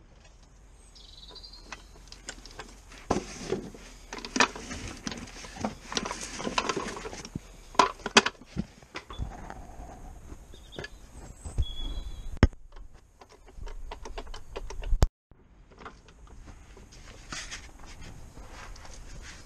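Irregular metallic clanks, clicks and knocks of tools and a trolley jack being handled and positioned under a car during a clutch job. The sound cuts out briefly about 15 seconds in.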